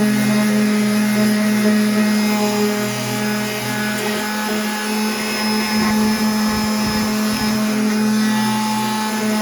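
Electric sander running steadily, its motor giving a constant hum, with some uneven low rumbling in the second half as it works the wood.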